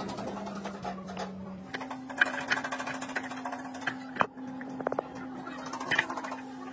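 A steady mechanical hum that steps up in pitch about two seconds in, under irregular light clicks and taps of heavy metal parts being handled, with one sharper knock a little past the middle.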